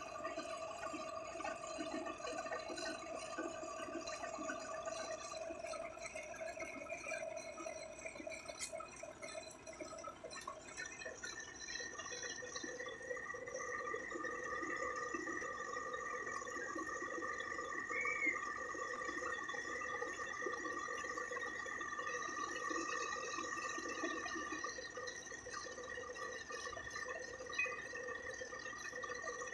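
Heavy tow truck running with a steady mechanical hum of several held tones, which shift slightly in pitch about eleven seconds in.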